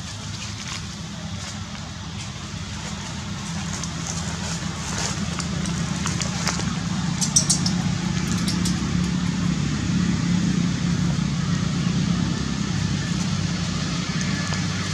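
Motor vehicle engine running with a steady low hum, growing louder from about four seconds in. A few short high squeaks come between about four and nine seconds.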